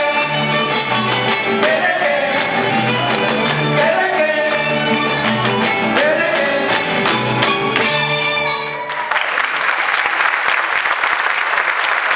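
Huapango played live by a string band with strummed guitars and a voice singing, ending with a few sharp accented strokes about eight seconds in. The music then stops and the audience applauds for the last few seconds.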